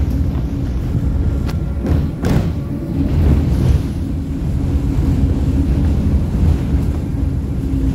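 M23 tram running along the track, heard from inside the car: a steady low rumble with a held motor hum, and a couple of sharp knocks about two seconds in.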